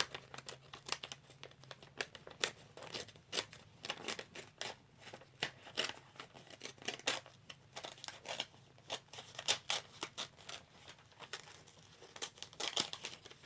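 Material being torn by hand and crinkled: an irregular run of sharp crackles and short rips.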